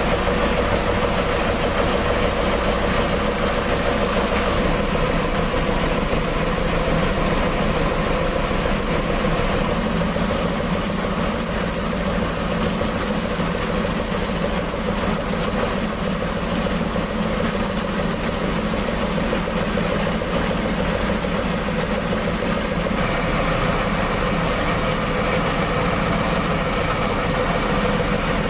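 Mitsubishi PS100 truck diesel engine running steadily to drive an N70 rice-milling machine, a continuous dense mechanical din. About two-thirds of the way in, the sound shifts slightly and a faint high whine comes in.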